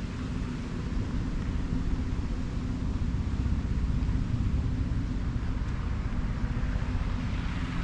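Steady low outdoor rumble: wind buffeting the microphone, mixed with distant traffic.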